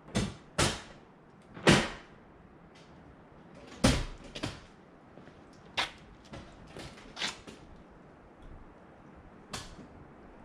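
Irregular sharp clacks and knocks of hard objects being handled, about a dozen, the loudest four in the first four seconds and fainter ones after.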